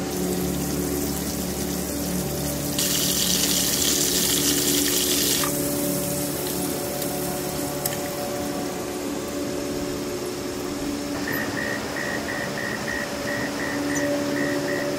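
Soft background music of sustained, slowly changing notes. About three seconds in, a hiss joins it for two to three seconds. From about eleven seconds a high chirp pulses about three times a second.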